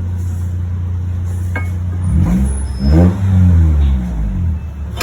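A car engine running steadily, then revved once about two seconds in, its pitch rising and falling back over a couple of seconds.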